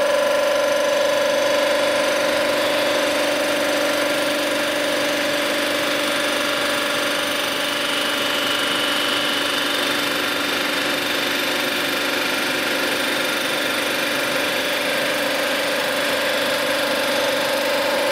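Cylinder head resurfacing machine running steadily with an even, whining hum, resurfacing an aluminum Ford flathead cylinder head.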